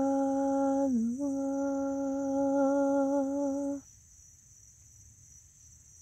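A woman's voice humming one long, steady note, with a short dip in pitch about a second in; it stops a little before four seconds. Underneath, crickets chirr steadily and faintly.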